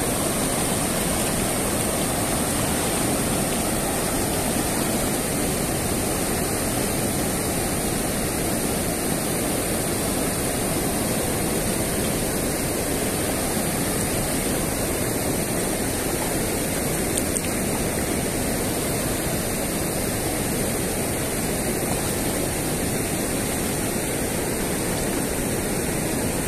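Steady rush of river water spilling over a low weir and flowing past, one unbroken noise with no pauses.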